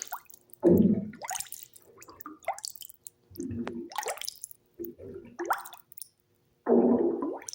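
Loud, short pitched gurgles from a person's body in bathwater, four of them: one about a second in, two smaller ones in the middle and another near the end. Between them come quick rising bubbling sounds and drips of water.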